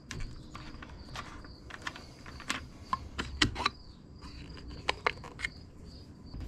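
A plastic bar-oil bottle being opened, its foil seal pried and punctured with a pointed tool: an irregular string of sharp clicks, ticks and scrapes. A high, steady pulsing insect chirp runs behind it.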